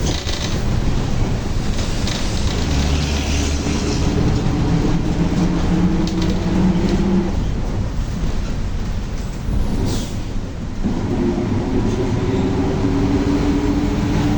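Volkswagen 17-230 OD bus running on the road, with a loud differential whine that climbs in pitch as the bus picks up speed. About ten seconds in the whine drops away for about a second, then comes back lower and climbs again.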